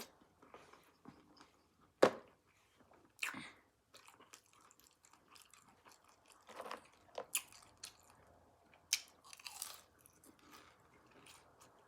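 Close-miked chewing and lip smacking of a mouthful of food: scattered wet clicks and smacks. A sharp click about two seconds in is the loudest.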